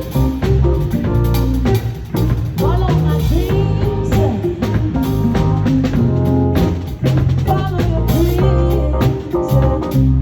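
A live band playing: drum kit and bass under a melodic lead line that bends and glides in pitch.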